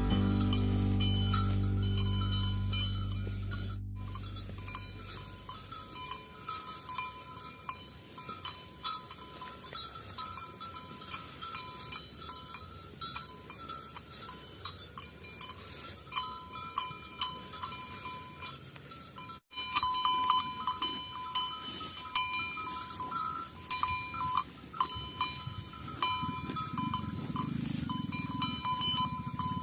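Bells worn by grazing livestock clanking and tinkling in a steady, irregular stream of small rings, louder after a cut about two-thirds of the way through. Low music fades out over the first few seconds.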